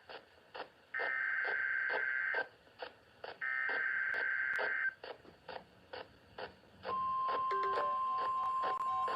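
Emergency Alert System SAME header: the last two of its three buzzy digital data bursts, each about a second and a half long with short pauses between, followed about seven seconds in by a single steady alert tone that begins and holds. A faint regular ticking, about three a second, runs underneath.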